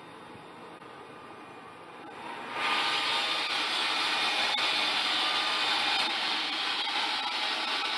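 Centauro R800 band saw running with a low steady hum, then about two and a half seconds in a much louder, steady rushing noise of the saw cutting through timber.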